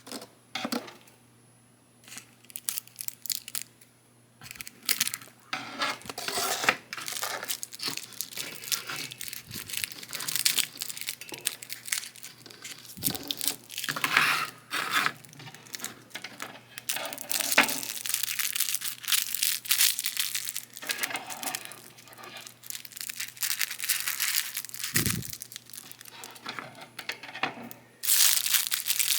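Plastic toy packaging being crinkled and torn open, in irregular rustles and small clicks after a couple of quiet seconds.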